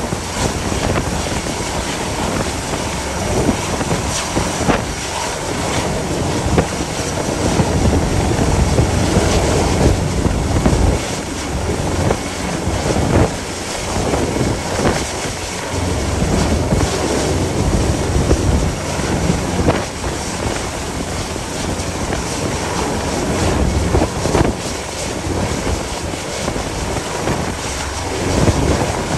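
Force 9 gale wind buffeting the microphone in irregular gusts, over the rush of the sea.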